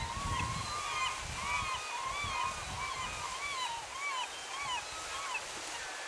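Gulls calling in a rapid series of rising-and-falling cries, about two a second, over the steady rush of the creek's falls. The calls stop about five seconds in.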